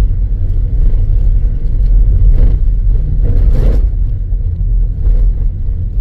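Car driving on an unpaved dirt road: steady low rumble of engine and tyres on the packed earth, with two brief louder noises in the middle.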